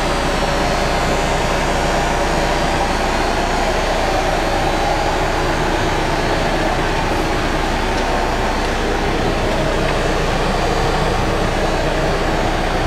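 Caterpillar 420D backhoe loader's diesel engine running at a steady speed, an even, unchanging hum.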